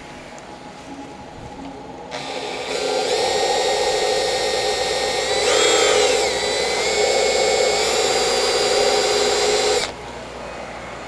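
Electric grinder sharpening a TIG welding tungsten electrode. The motor spins up with a whine about two seconds in, its pitch sags briefly near the middle as it takes load, and it shuts off about a second before the end.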